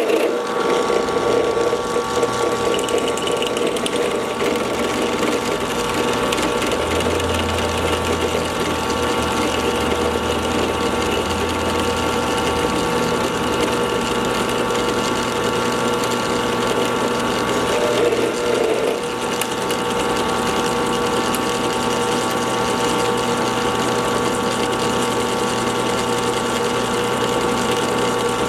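Drill press running steadily under power, its motor and drive giving a constant mechanical whir with several steady tones, while it is used to cut a keyway in a pulley. The sound wavers briefly about two-thirds of the way through.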